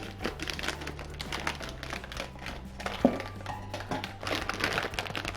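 Plastic snack wrapper crinkling and rustling as a package of sesame seed candies is opened by hand, with one sharp snap about three seconds in. Soft background music underneath.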